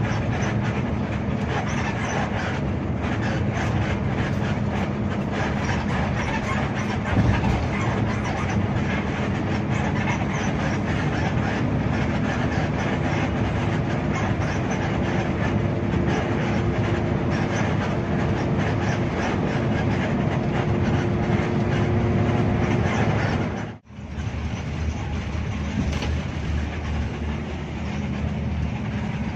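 Cabin noise of a Hino RK8 R260 coach driving on a highway: a steady diesel engine drone under tyre and road rumble, with fine rattling and ticking. The sound cuts out for a moment about three-quarters of the way through, then the same running noise resumes.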